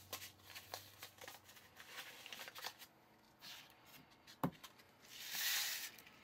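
Coarse salt poured from a bag into a glass bowl, a hissing pour about five seconds in lasting about a second, the loudest sound here. Before it, light handling rustles and clicks, with one sharp tap a little over four seconds in.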